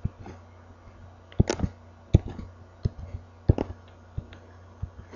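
About a dozen short, sharp clicks at irregular intervals, from the mouse or stylus used to put dots one by one on a computer drawing canvas, over a faint low steady hum.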